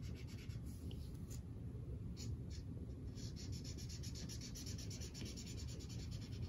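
Black felt-tip marker tapping dots onto paper: a few scattered taps, then a quick run of small taps, several a second, from about halfway in, over a steady low background hum.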